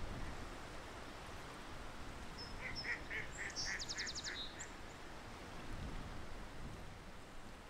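Waterfowl calling: a quick run of about eight short, evenly spaced high calls, roughly five a second. A brief rapid high trill from a small bird comes in about four seconds in, over steady low background noise.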